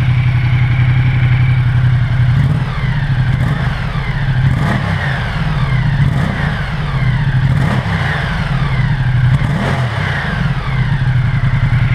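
Ducati Multistrada 1200 Enduro's V-twin on its stock exhaust with the catalytic converter still in, idling, then revved in several throttle blips that rise and fall before it settles back to idle near the end. On the factory pipe it is quite quiet.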